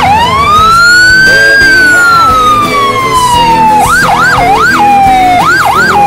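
Emergency-vehicle siren: one long rise in pitch over about a second and a half, a slow fall over the next two seconds, then quick rising-and-falling whoops, three in a row, a held note, and two more near the end. Music plays underneath.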